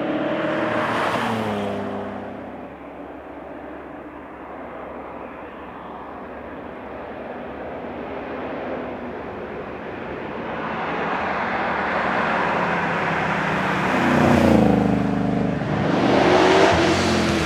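Holden VH Commodore SS Group 3 V8 race car at speed. The engine note is loud at first and falls in pitch, drops to a fainter hiss through the middle, then builds again from about ten seconds in to a loud engine note that rises and falls in pitch near the end.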